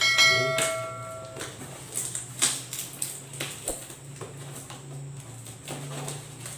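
Fingers picking at and peeling packing tape on a cardboard box, giving short scratchy tearing and rustling noises now and then. At the very start a bell-like chime rings out and fades over about a second.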